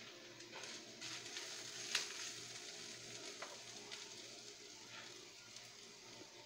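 Minced garlic and onion sizzling in oil in a non-stick wok while a wooden spatula stirs them. The sizzle swells in the first few seconds and then eases, with a few light knocks of the spatula against the pan, the sharpest about two seconds in.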